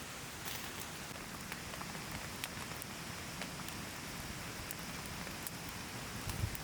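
Rain falling: a steady hiss with many separate drops ticking sharply on a surface close by, and a low thump near the end.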